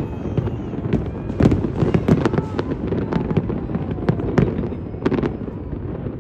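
Fireworks going off in a rapid, irregular series of bangs and crackles over a continuous low rumble, thinning out near the end.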